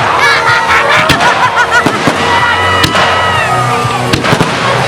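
Fireworks going off in a display: repeated sharp bangs and crackles over loud music.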